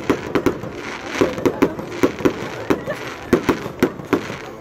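Aerial fireworks bursting overhead: a rapid, uneven string of bangs and crackles, about three a second.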